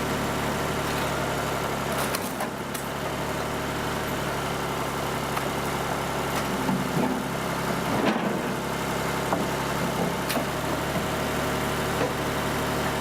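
Horizontal hydraulic log splitter running steadily, its drive and hydraulic pump giving an even hum. A few sharp knocks and cracks come through, with the running note shifting about two seconds in and again about eight seconds in.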